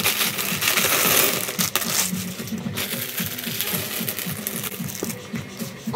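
Small plastic Lego pieces clattering and rattling inside crinkly plastic bags as the bags are handled and opened. The sound is loudest in the first couple of seconds, then settles to lighter clicking and rustling.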